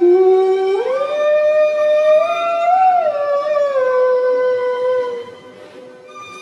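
One long howl-like vocal note, held for about five seconds: it starts abruptly, jumps up in pitch about a second in, wavers, slides back down and stops.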